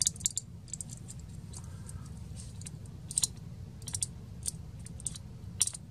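A dozen or so irregular, sharp clicks and ticks from a small pocket knife and its lanyard bead being handled, with a low steady hum underneath.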